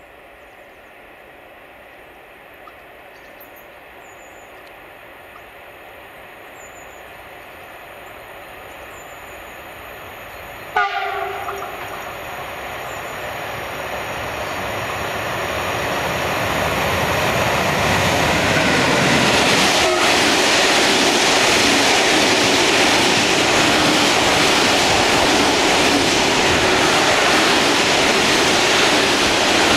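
A freight train of hopper wagons hauled by an electric locomotive approaches and passes. The locomotive's horn sounds one short blast about eleven seconds in. The train's running noise then swells into a steady loud rumble of wagon wheels on the rails as the wagons roll by.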